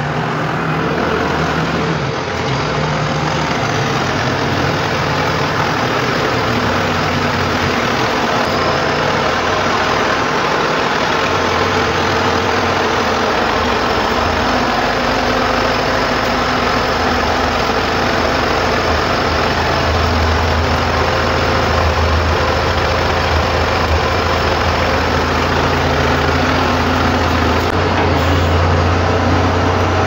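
Compact wheel loader's diesel engine running at low speed as the machine creeps forward under power. The low engine hum grows louder over the last third as the loader comes close.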